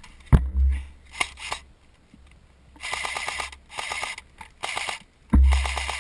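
Handling noise on a body-worn camera's microphone: a sharp click and thump about a third of a second in, a few smaller clicks, then three short bursts of rustling hiss. A loud low rumble with rustle starts near the end.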